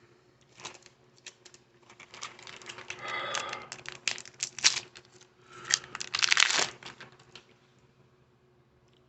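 Baseball card pack wrapper crinkling and tearing in two louder stretches, about three and six seconds in, among light clicks of cards being handled.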